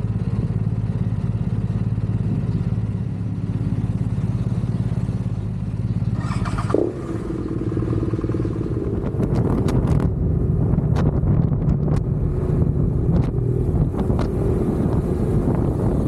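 Motorcycle engine running steadily with a low, even drone, with scattered sharp clicks in the second half.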